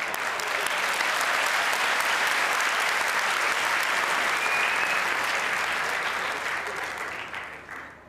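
Studio audience applauding, swelling in the first second, holding steady, then dying away near the end.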